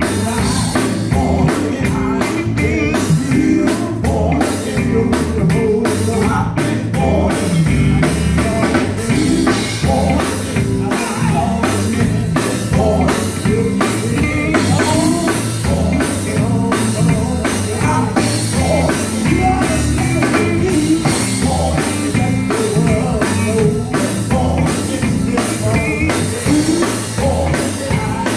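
Live gospel band music with a drum kit keeping a steady beat and guitar.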